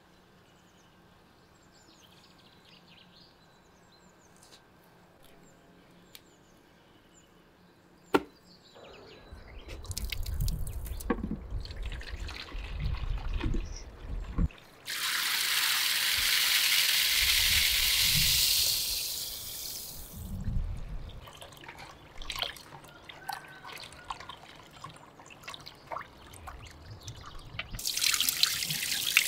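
Water from a brass outdoor tap splashing into a plastic bowl, loud and steady for about five seconds midway. The tap runs again near the end as water is poured off grain in the bowl. Before that it is quiet, with faint bird chirps, a single sharp click and some low handling bumps.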